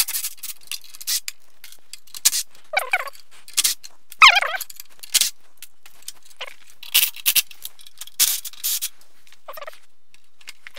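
Parts of a power wheelchair frame being worked loose and handled: irregular clicks, rattles and clanks of metal and plastic, with two short squeaks about three and four seconds in.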